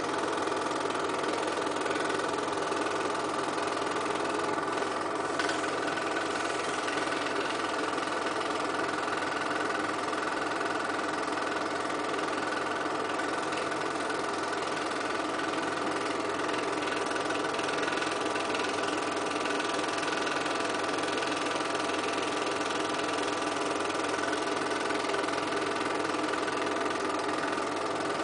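Film projector running steadily: an even motor hum with the mechanism's steady whir and clatter.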